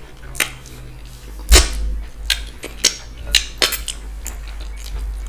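Close-miked eating: wet, sticky clicks and smacks from mouths chewing fufu with ogbono and okra soup and from fingers working the soup, in an irregular scatter of short sounds. The loudest is a thump about a second and a half in.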